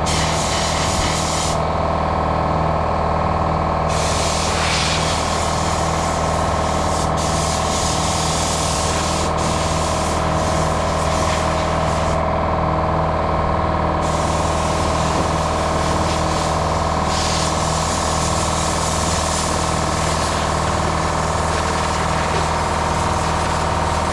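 Steady hum of an air compressor running under the loud hiss of a compressed-air blow gun, whose hiss stops twice for about two seconds at a time.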